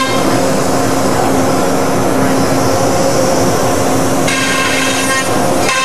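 Freedom CNC router running: a steady spindle whine, joined for most of the time by a louder rushing mechanical noise that stops abruptly near the end.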